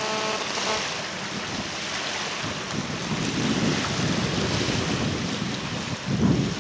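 Wind buffeting the microphone: a steady rushing with irregular low rumbling gusts that grow stronger near the end.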